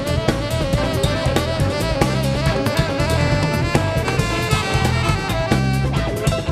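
Live neo-tango band playing an instrumental passage: drum kit keeping a busy beat over a steady bass line and electric guitar, with saxophone and violin carrying a wavering melody line.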